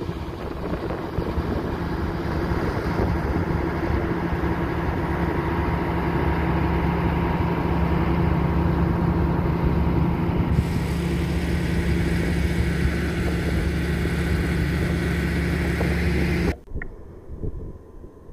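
Steady low mechanical drone holding one constant pitch, with a hiss joining it about ten seconds in. It cuts off suddenly near the end, leaving a much quieter background with a faint click.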